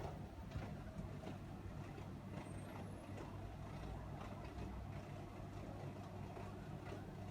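Samsung twin-drum inverter washing machine running with a steady low motor hum and faint light clicks, now running since its door switch was repaired and the IDC4 error cleared.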